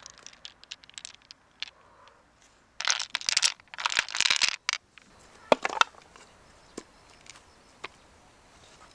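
Purple pearl beads clicking and clattering against each other and the mother-of-pearl of an open mussel shell as a handful is tipped in, in two dense bursts about three and four seconds in, then scattered single clicks as they settle and are handled.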